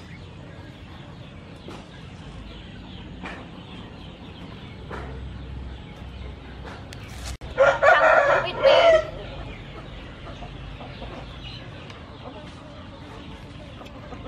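A rooster crows once, loud and about a second and a half long, about halfway through, over a faint steady background.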